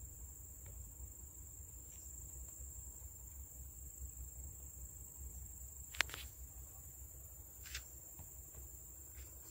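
Steady, high-pitched trill of insects over a low rumble, with a sharp click about six seconds in and a softer one shortly after.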